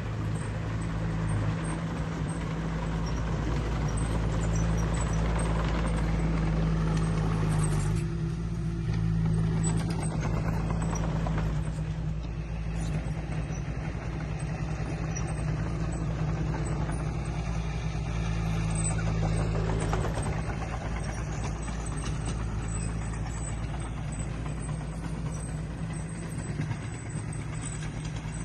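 Heavy diesel earthmoving machinery running steadily under working load: a low engine drone with mechanical clatter over it, easing briefly about eight and twelve seconds in.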